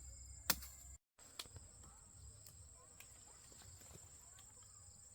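A single sharp chopping knock about half a second in, then steady high-pitched insect chirring from crickets in the field, with a few faint ticks.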